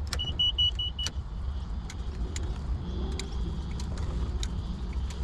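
Helicopter cockpit switches clicking as the pilot works the panel before start-up. About five quick electronic beeps sound in the first second, and a faint steady tone comes in about three seconds in, over a low steady rumble.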